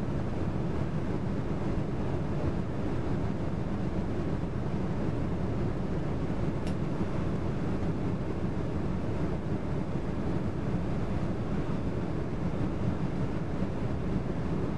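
Steady low roar of an airliner cabin in flight, jet engine and airflow noise, with one faint click about halfway through.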